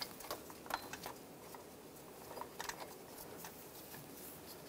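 Faint scattered light clicks and rubbing as gloved hands feed a ribbed serpentine belt around the engine's pulleys.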